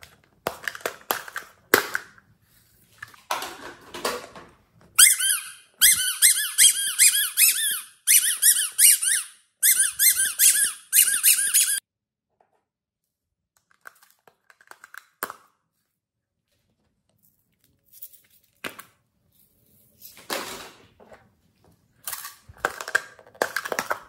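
Small plastic slime containers being handled and opened: sharp clicks and crackles, then about seven seconds of loud, wavering plastic squeaking from about five seconds in. Quieter clicks and rustles follow near the end.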